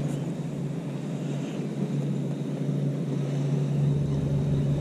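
A boat motor running steadily on the water, a low even hum.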